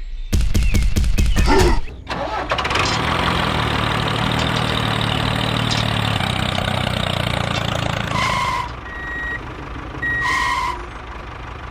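A small engine starting with a rapid clatter, then running steadily for several seconds, followed by two short high beeps.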